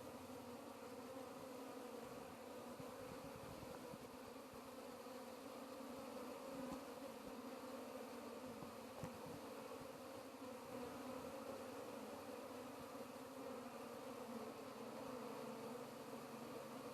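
Honeybees buzzing as a steady, even hum, the sound of a bee colony close by.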